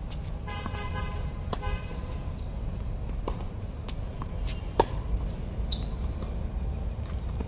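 Tennis rally on a hard court: sharp racket-on-ball hits at intervals, the loudest about five seconds in, over a steady high-pitched chirring of crickets.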